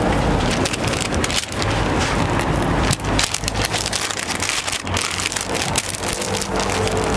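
Paper wrapper crinkling and crackling as a folded waffle is slid into a paper sleeve by gloved hands, over steady background noise with a low hum.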